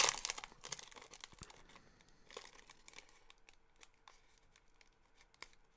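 Plastic wrapper of a basketball trading-card pack crinkling and tearing as it is opened, strongest in the first second, then a few faint taps and rustles as the cards are handled.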